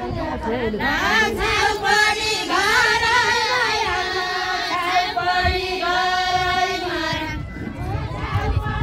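Women's voices singing a Nepali Deuda folk song, long held notes that bend in pitch; the singing stops about seven seconds in.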